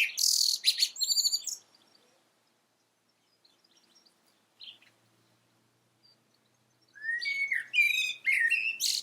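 Eurasian blackbird singing: a phrase of warbled whistles ending in a higher, squeaky twitter, then a pause of several seconds broken by one short note, and a new phrase beginning about two seconds before the end.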